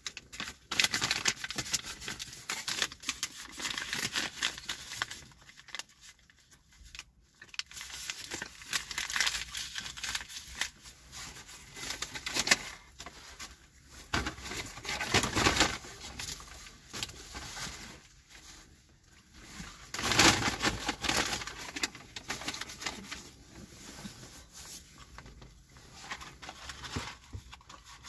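Paper takeout bags crinkling and rustling as they are handled and folded, a McDonald's paper bag among them, in irregular bursts.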